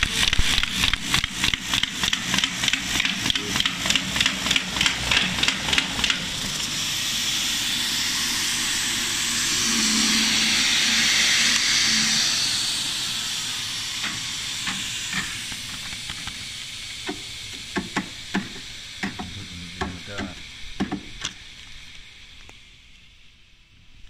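MB Multipli 325 buckle folding machine running, feeding and folding sheets with a fast, even clatter of about four strokes a second. About six seconds in the clatter stops, leaving a steady hiss that swells and then slowly dies away. Scattered light clicks and knocks follow.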